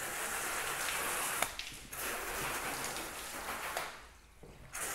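Water sprayed from a hose spattering onto a car's body panels, soaking and rinsing off winter road salt and grime. The spray breaks off briefly about a second and a half in, runs again, and pauses once more near the end.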